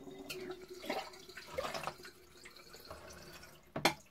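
Water draining through a plastic funnel into the bunghole of a small oak barrel, trickling and splashing unevenly, as the new barrel is filled with cold water to swell its staves. A sharp knock comes near the end.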